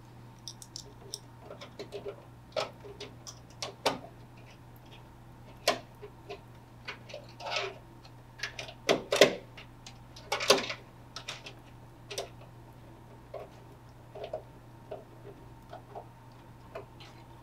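Metal brackets and screws being fitted and driven into a window air conditioner's chassis by hand with a quarter-inch nut driver: scattered small clicks and ticks, with a few louder scraping rattles around the middle, over a low steady hum.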